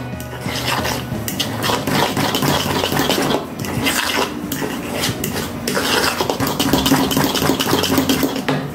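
A fork beating a wet egg and cheese filling in a bowl: continuous rapid clinking and scraping of the fork against the bowl.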